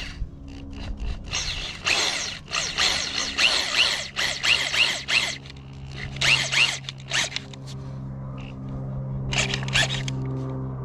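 Corded drill with a T30 Torx bit driving a long screw through the rubber track belting into a grouser: a run of rough, irregular scraping bursts, then the drill motor running steadily for the last few seconds.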